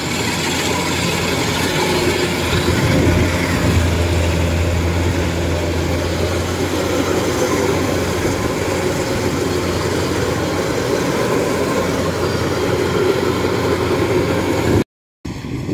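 Kubota DC-93 combine harvester's diesel engine and threshing machinery running steadily under load as it cuts a heavy crop of ripe rice. The sound cuts out for a moment near the end.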